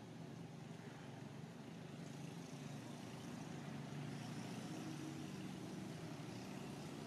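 Low, steady rumble of a distant engine, a little louder about halfway through, over a faint high hiss.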